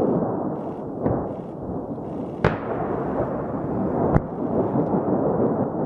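Ammunition depot explosion: a dense, steady low rumble of the blast and fire, with sharp cracks of munitions detonating, one about a second in, the loudest about two and a half seconds in with a ringing tail, and another just after four seconds.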